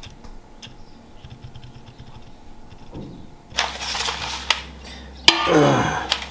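Boiled mussel shells clattering and scraping against a stainless steel tray as hands move them. Faint at first, with louder rattles in the second half.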